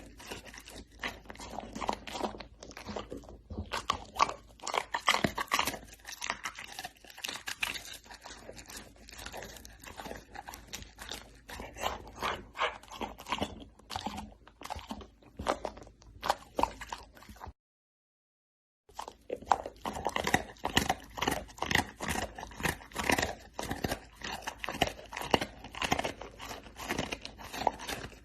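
Dog chewing and crunching food, close up: a dense, irregular run of crunches and bites, broken by a silence of about a second and a half about two-thirds of the way through.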